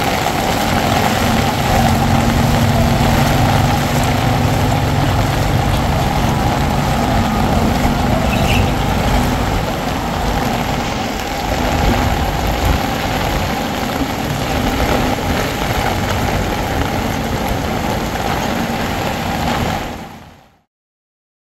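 Heavy rain pouring steadily onto a flooded road, with an engine running at a steady pitch underneath for roughly the first half. All sound fades out near the end.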